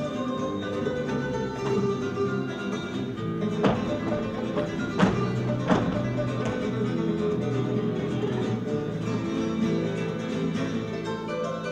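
Latin dance music led by plucked and strummed guitar, with three sharp hits that stand out about four to six seconds in.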